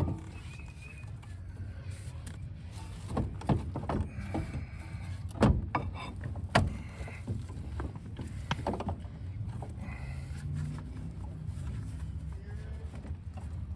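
Metal knocks and clanks of hand work on a car's front suspension while a strut assembly and CV axle are being worked loose: a string of sharp hits over several seconds, a few short squeaks among them, over a steady low rumble.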